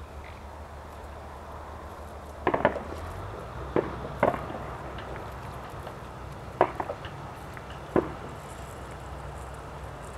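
Thin ice clinking and cracking as mute swans push through it: a handful of sharp clinks, some in quick pairs, starting about two and a half seconds in and ending around eight seconds, over a low steady rumble.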